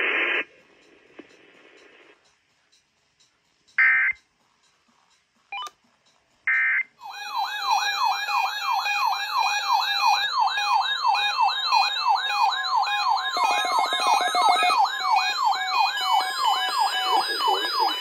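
Radio hiss cuts off, and two short buzzy bursts come a few seconds apart. Then several NOAA weather alert radios sound their alarms at once for a received Required Weekly Test: overlapping electronic warbles rising and falling about twice a second, with steady beeps and higher chirps layered on top.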